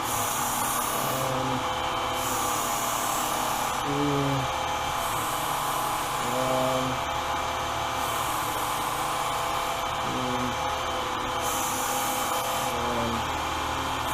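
Work Sharp Ken Onion Edition belt sharpener's motor running steadily. A hiss of a blade being drawn across the moving abrasive belt comes and goes in repeated passes, every couple of seconds.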